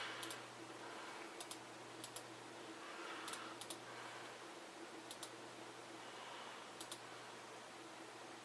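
Faint, scattered clicks of a computer mouse, many in quick pairs, over a low steady hum.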